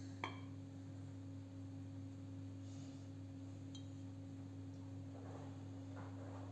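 A steady low hum with a faint steady tone above it. A single sharp click comes just after the start, and soft handling noises come near the end.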